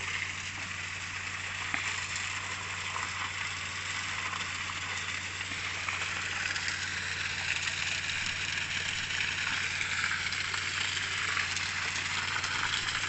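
An engine runs steadily in the background, a low even hum, under a hiss of water and sand slurry running over the mud from the discharge pipe. The hiss grows louder toward the end.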